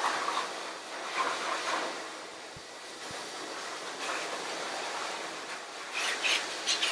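Pet grooming force dryer blowing air through its hose over a dog's damp curly coat, a steady rushing hiss. A few short scratchy rustles come near the end.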